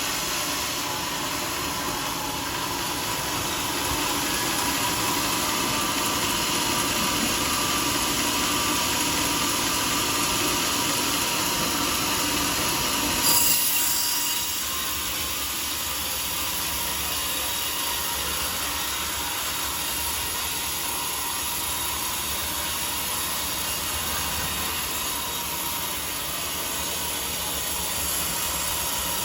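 Sawmill saw running through a teak log, a steady whining, noisy cut. It grows louder a few seconds in, gives a brief sharp screech about 13 seconds in, then runs on a little quieter.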